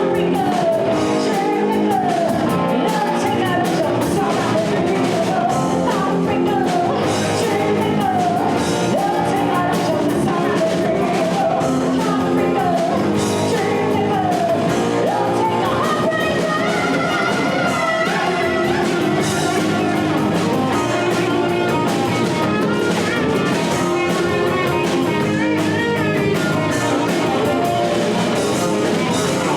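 Rock band playing a song, with a singer over guitar and drums.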